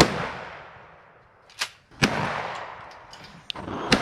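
Two shotgun blasts about two seconds apart, each trailing off in a long echo, with a shorter, fainter crack near the end.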